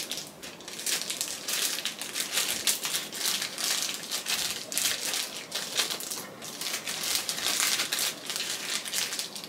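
Packaging wrapped around a phone tripod being crinkled and pulled off by hand, in irregular bursts of rustling and crackling.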